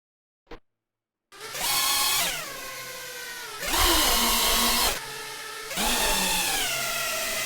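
FPV quadcopter's electric motors and propellers whining, spinning up about a second in and surging three times under bursts of throttle, the pitch sliding down as the throttle eases after each.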